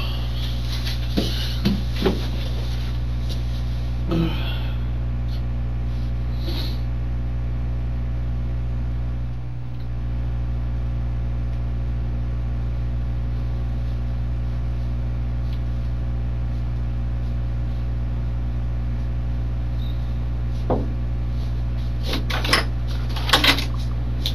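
Steady low hum of the room recording, with a few faint knocks and rustles about a second in, around four seconds, and again near the end as a man shifts in a chair.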